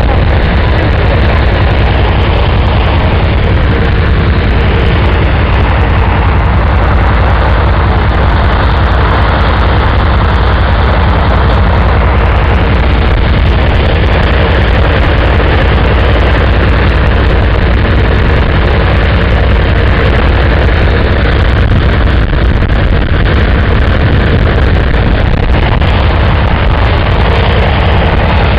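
An Antonov An-2 biplane's nine-cylinder radial piston engine running steadily close by, loud and unchanging.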